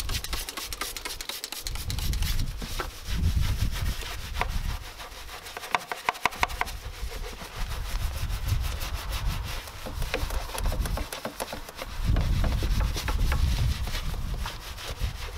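Bristle brushes scrubbing over soapy, grimy engine parts: a rapid back-and-forth rasping, with uneven low rumbles underneath.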